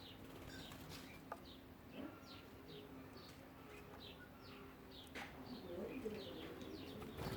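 Several birds giving short, high, falling chirps again and again, with a low cooing like a dove's about six seconds in. A faint steady hum sits underneath.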